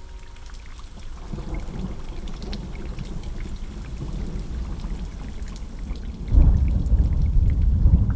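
A deep, noisy rumble with scattered faint crackles, swelling about a second in and getting much louder a little after six seconds.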